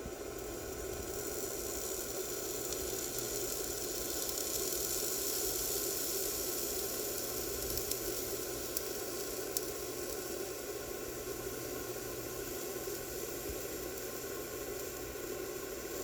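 Steady sizzling of dirt, old grass and paint burning off a stuck mower blade bolt as it is heated with a handheld bolt-heating tool, with a few sharp crackles around the middle.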